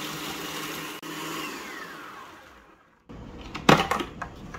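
Food processor chopping pecans, then switched off about a second and a half in, its motor whine falling in pitch as the blade spins down to silence. Near the end come a few sharp clicks and knocks as the plastic lid is handled.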